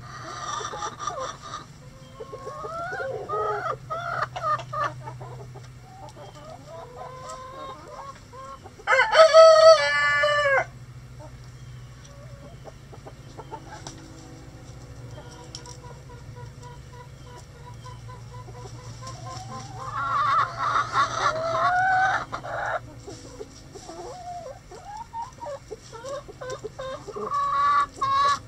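Backyard chickens clucking and calling, with a rooster crowing loudly once about a third of the way in. A second long call comes about two-thirds through.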